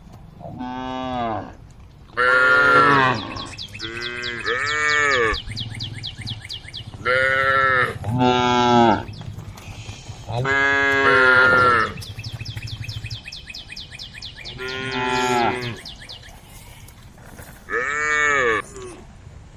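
Cows mooing repeatedly, about eight loud calls in a row, each lasting about a second and rising then falling in pitch.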